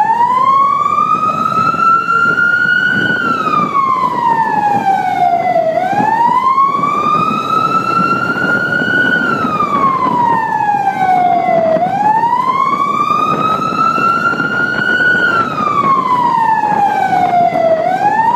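Vehicle siren in a slow wail, its pitch rising for about three seconds and falling for about three, three times over, above a steady rushing noise.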